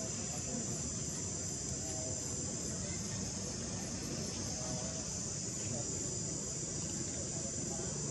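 Insects buzzing steadily in the trees, a continuous high-pitched chorus.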